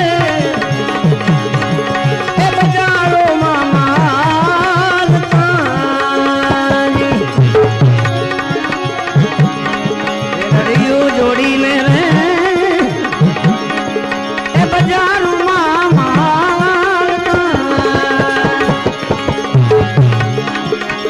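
Instrumental passage of a Gujarati bhajan: tabla-style hand drums play a rhythm under a wavering melodic line and a steady held drone.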